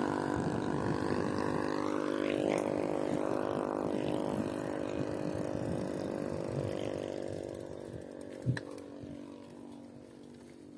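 A motorcycle engine running as it passes by, its pitch dropping about two seconds in, then fading away. A single knock near the end.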